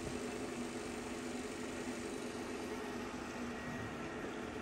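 TOS Kuřim FNK 25 vertical turret milling machine running its longitudinal table power feed at the minimum feed rate: a steady mechanical hum from the feed drive.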